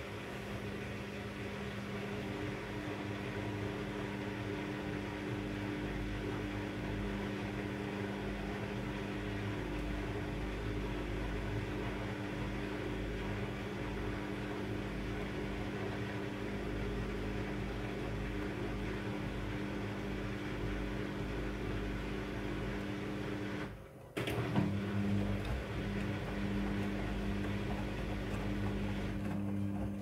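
Front-loading washing machine running: a steady motor hum with a few even tones over a low rumble from the turning drum. It breaks off briefly about 24 seconds in, then carries on.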